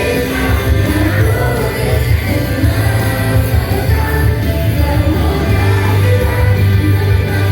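Live band playing a pop-rock song, a singer's voice over a heavy bass line.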